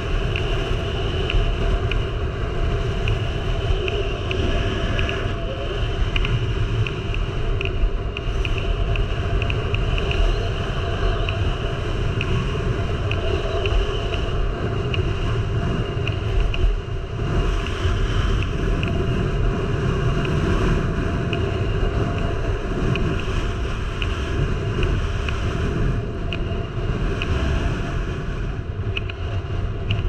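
Strong wind buffeting the camera microphone in a steady, heavy rumble, over the scraping hiss of a rider sliding down snow.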